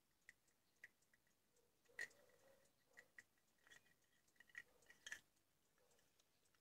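Faint clicks and light scrapes of a small white plastic phone-charger case being handled, its circuit board fitted back into the shell. The loudest click comes about two seconds in, with a cluster of clicks about five seconds in.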